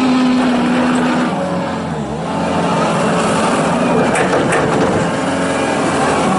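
John Deere 331G rubber-track skid steer loader running while being operated, its diesel engine note steady apart from a brief dip about two seconds in. Two sharp knocks come a little past the middle.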